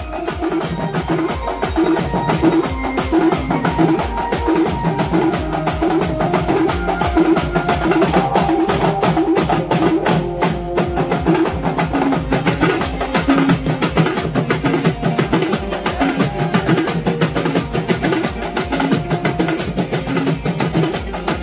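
Dance music with a fast, steady drumbeat over a repeating melody.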